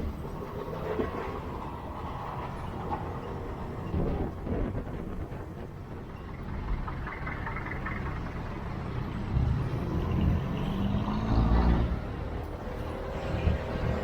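Road traffic rumble of vehicle engines and tyres, with an engine revving up in a rising note about ten seconds in.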